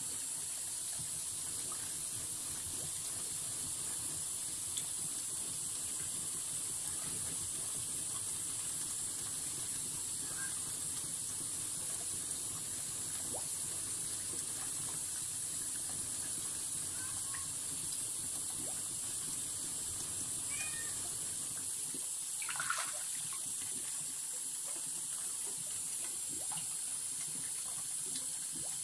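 A steel plane blade being rubbed back and forth on a wet sintered diamond sharpening plate to flatten its back: a faint steady scraping under a constant hiss. A brief squeak stands out about 22 seconds in.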